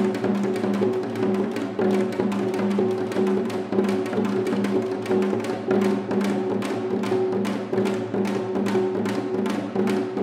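Korean traditional percussion ensemble playing a fast, even rhythm of drum strokes over a steady held tone.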